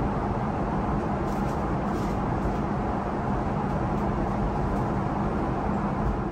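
Steady in-flight cabin noise of a Boeing 777-300ER, heard from inside the cabin: the even roar of airflow and its two GE90 turbofan engines, with a low hum underneath.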